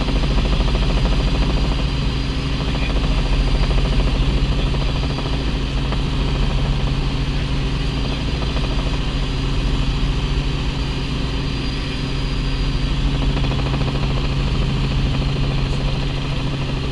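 Light helicopter in cruise flight, heard from inside the cabin: a steady drone of engine and main rotor, with several low steady tones under a constant rushing hiss.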